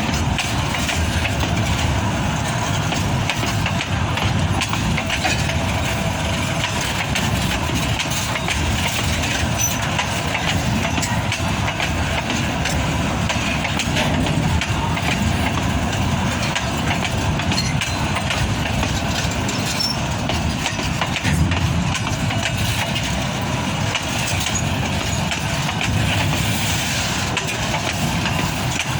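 Diesel freight locomotive engine running steadily.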